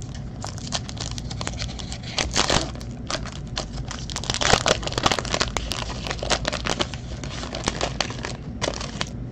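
Foil wrapper of a 2019-20 Upper Deck Trilogy hockey card pack crinkling and tearing as it is ripped open by hand, the loudest tearing about two seconds in and again around four and a half seconds.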